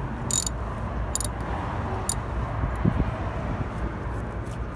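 A wrench on a car's negative battery terminal clamp, loosening it: three short metallic clicks about a second apart, then a soft knock, over a steady low outdoor rumble.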